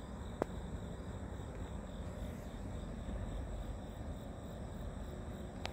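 Low, steady rumble of a freight train moving away down the track, with a sharp click about half a second in and another near the end.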